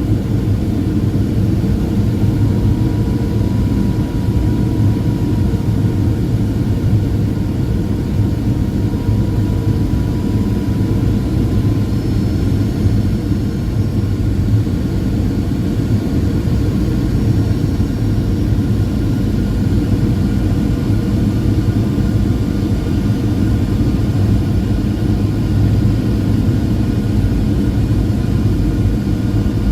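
Jet airliner cabin noise in flight: a steady, deep rush of engines and airflow, with a faint steady whine above it.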